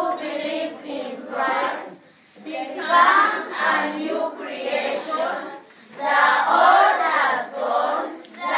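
A group of children's voices singing together in unison, in short phrases with brief breaks about two seconds and five and a half seconds in.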